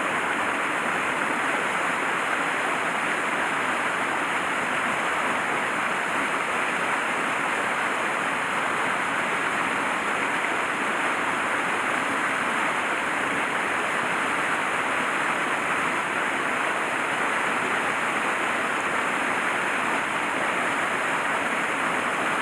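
Mountain stream water rushing in a steady, unbroken noise.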